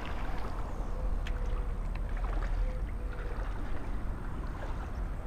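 Wind buffeting the camera microphone: a steady, uneven low rumble, with a few faint ticks.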